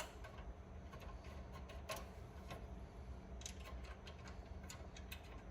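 Scattered light clicks and taps from the screws and metal fiber cassette holder being handled and set finger-tight in a rack cabinet, over a low steady hum.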